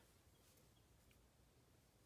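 Near silence: room tone with a faint low hum and a couple of faint small ticks.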